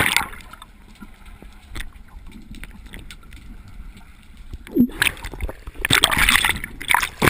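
The tail of a loud splash, then muffled underwater sound from a submerged GoPro. About five seconds in it breaks the surface and water sloshes and splashes loudly and irregularly around the camera.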